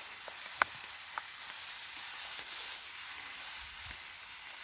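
Water spraying onto seedling beds in a steady hiss, with two small clicks a little after the start.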